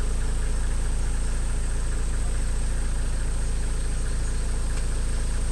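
Safari vehicle's engine running at a steady low hum, heard from inside the cabin.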